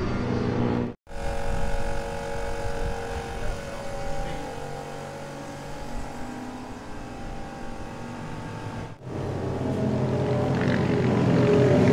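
Classic British racing motorcycle engines running on the stand, in edited snatches. A brief burst is cut off about a second in, followed by a steady, even idle. After a second cut about nine seconds in, an engine runs louder and louder toward the end.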